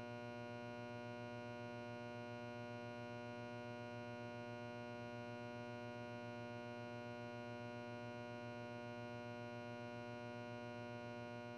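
A steady electronic hum with an even stack of overtones and a faint fast pulse in its lowest note, unchanging throughout.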